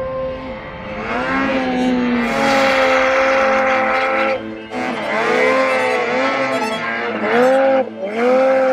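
Ski-Doo Summit mountain snowmobile's two-stroke engine revving hard as it ploughs through deep powder, its pitch rising and falling with the throttle. The throttle is briefly let off twice, about four and a half and eight seconds in.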